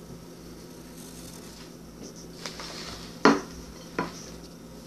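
Faint pencil strokes on paper, broken by a few sharp clicks, the loudest a little past three seconds in and another about a second later.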